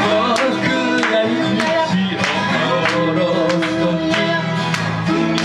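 Live folk music: an acoustic guitar strummed in a steady rhythm, about two strokes a second, with a lap-played guitar adding gliding slide notes.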